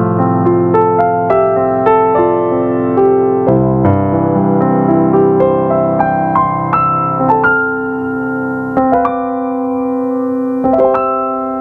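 Yamaha Arius YDP-164 digital piano playing a flowing piece: a quick run of notes over sustained chords, thinning out about eight seconds in to long held chords, with a new chord struck near the end.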